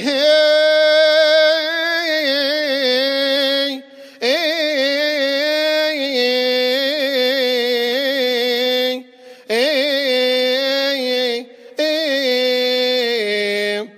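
A solo male deacon chants unaccompanied in Coptic Orthodox liturgical style: a long, wordless melisma of held notes with wavering ornaments, drawn out at the close of the Gospel reading. The chant falls into phrases, with short breaths about 4, 9.5 and 11.7 seconds in.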